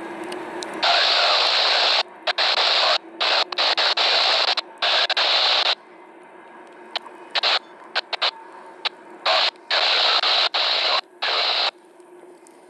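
Railroad scanner radio hissing with loud static that cuts in and out abruptly in choppy bursts, the squelch opening and closing; it starts about a second in, has a quieter stretch with a few short clicks in the middle, and stops shortly before the end.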